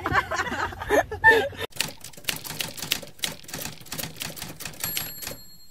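Typewriter typing sound effect: a rapid run of key clicks for about three and a half seconds, ending in a thin high ring.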